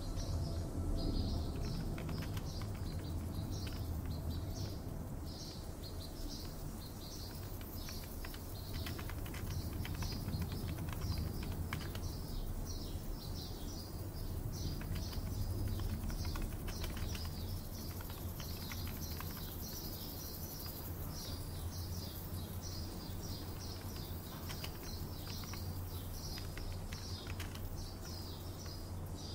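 Small birds chirping and singing without pause, with scattered computer-keyboard typing clicks over a steady low hum.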